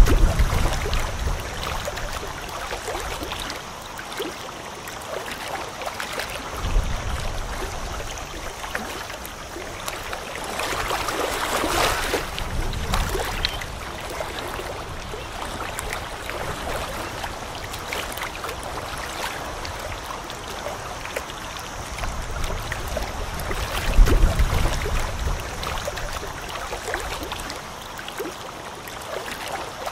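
Small waves lapping at a lakeshore, with wind gusting on the microphone now and then as low rumbles, strongest near the start and again about 24 seconds in.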